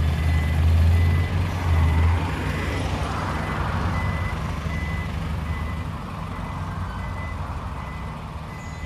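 Diesel lorry engine running, with its reversing alarm sounding a single high beep over and over at a steady pace. The engine's low drone eases off after about two seconds, while the beeping keeps going.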